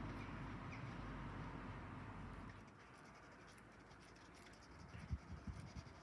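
Steady outdoor background noise that drops away about two and a half seconds in; near the end, a pencil tapping small dots onto sketchbook paper, a quick run of soft taps.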